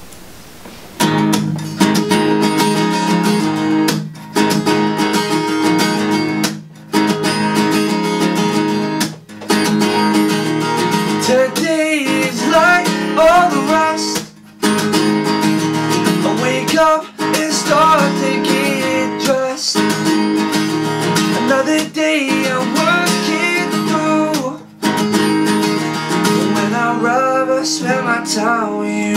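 Capoed acoustic guitar strummed in a steady chord pattern, coming in about a second in, with short breaks between phrases. A man's singing voice joins over the guitar about twelve seconds in.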